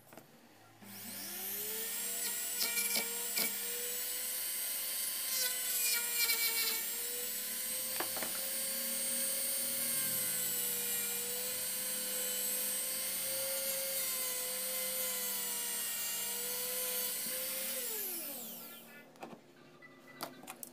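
Handheld rotary tool with a small wheel disc on its mandrel spinning up about a second in to a steady high whine. The spinning disc is held against sandpaper, with scratchy sanding bursts, before the motor winds down near the end.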